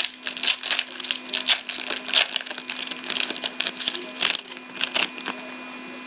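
Panini Select hockey card pack's wrapper crinkling and tearing as it is opened by hand, a rapid irregular crackle that stops about five seconds in.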